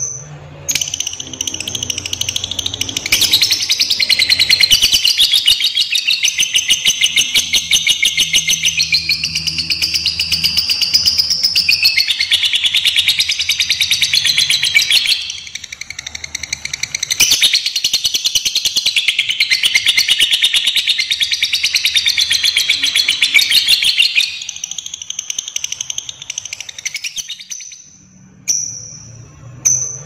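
Lovebird giving its long 'ngekek' chatter: shrill chips run together into a very fast, rattling trill that goes on for many seconds, breaks off briefly about halfway, then carries on before tailing off near the end.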